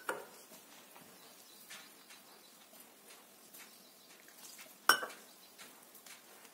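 A steel tumbler clinks against a glass mixing bowl, once at the start and again about five seconds in, each with a short ring. Between the clinks, faint soft sounds of a hand mixing water into wheat flour for dough.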